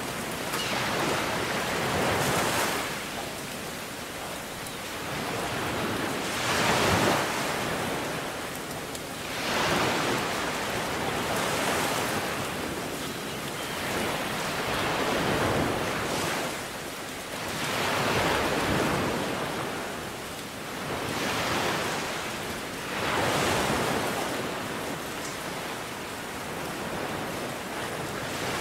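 Ocean surf: waves breaking and washing onto the shore, the hiss swelling and falling away every few seconds.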